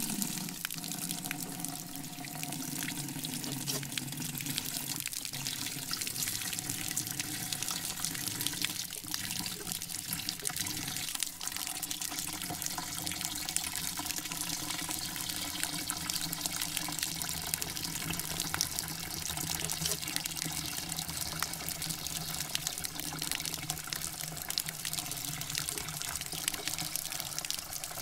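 Shower water spraying steadily, an even hiss, with faint low steady tones underneath.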